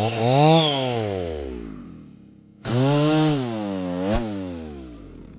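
Chainsaw engine revved, then winding down with falling pitch and fading out. After a short silence a second burst starts abruptly at high revs, dips, revs up once more a second or so later and dies away with falling pitch.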